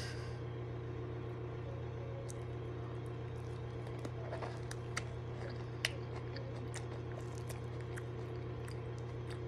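A person biting into a whole pickle coated in cornstarch and chewing it, with scattered small crunches and clicks. A steady low electrical hum runs underneath.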